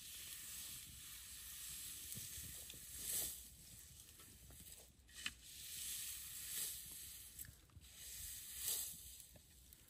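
Wood fire burning down to embers in a brick fire pit, hissing softly in swells that rise and fade, with a few faint crackles.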